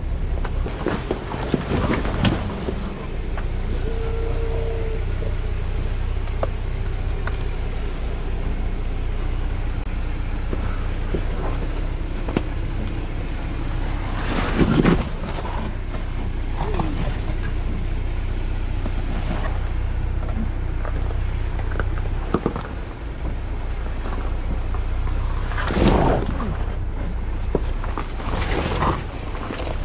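Off-road 4x4 engine running steadily at low revs, with scattered knocks and two louder thumps about halfway and near the end, as the vehicle crawls a rough trail.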